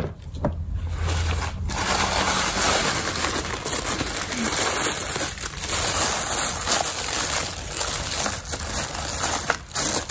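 White tissue paper being handled and unfolded, crinkling and rustling continuously, beginning about two seconds in.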